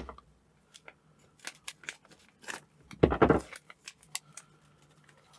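Handling of a small flat plastic packet holding a spudger: scattered light clicks and plastic rustles, with one louder, longer rustle about three seconds in.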